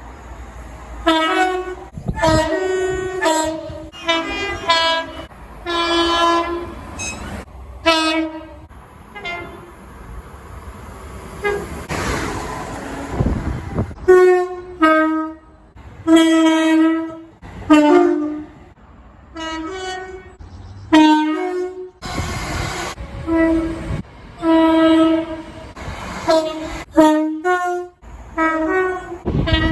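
A rapid series of British railway train horn blasts, many of them two-tone, stepping between a high and a low note, some short toots and some held for about a second. Around the middle and again later, a rushing noise from moving trains fills the gaps.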